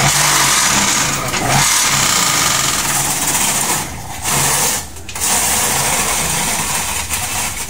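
Electric vibrator motor of a manual concrete-block press running, shaking the steel mould so it rattles over a low motor hum while the mould box is lifted off the fresh blocks. The rattle breaks off briefly twice around the middle.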